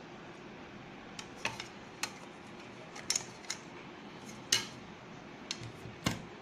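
An aluminium cake tin knocking and clinking against a ceramic plate as a chilled cake is turned out of it: scattered sharp knocks, the loudest about four and a half seconds in and another near the end.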